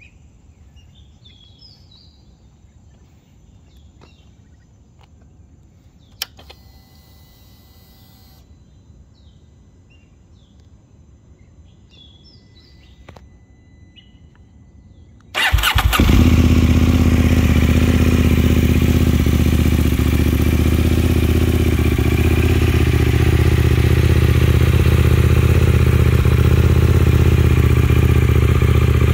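Faint birdsong, then a click and a brief hiss about six seconds in. About halfway through, the 2023 KTM 890 Duke R's parallel-twin engine starts on the button and settles into a steady idle through an Akrapovič Evolution exhaust.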